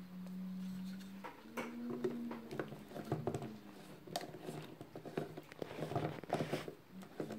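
Scattered plastic clicks, taps and knocks as a personal blender's cup is handled and its blade lid is screwed on. A low steady hum sounds for about the first second.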